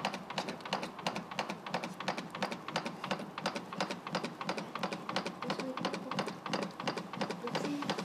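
Adult CPR training manikin clicking under chest compressions, one push after another in a rapid, even rhythm.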